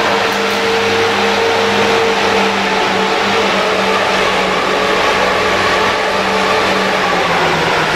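Ice resurfacer's engine running steadily: a low, even hum over a hiss.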